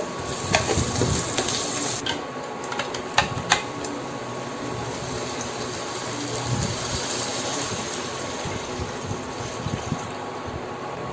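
A wooden spatula stirs garlic and onion frying in oil in a stainless steel pot, knocking against the pot a few times in the first few seconds. Then the curry mixture is poured from a measuring jug into the hot pot: a steady pouring sound.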